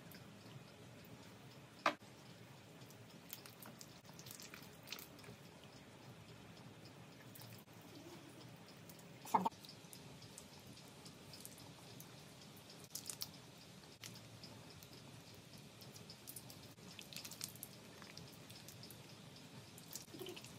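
Honeycomb being crushed and squeezed by hand over a mesh strainer: faint, sticky squishing and crackling of the wax comb as honey drips out, with scattered small clicks and two sharp knocks, about two seconds in and about nine seconds in.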